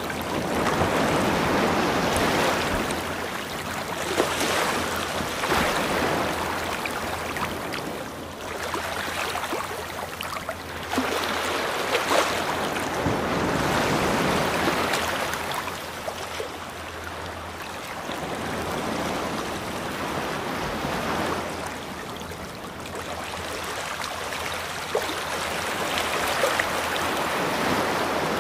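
Ocean waves washing in and out: a hissing wash that swells and fades every few seconds.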